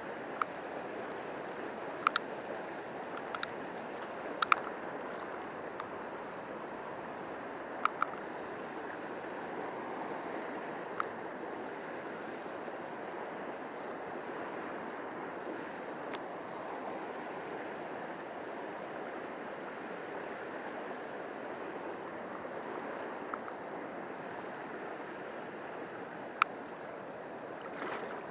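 Steady rush of a shallow river flowing over a rocky riffle, with a few sharp single clicks scattered through it.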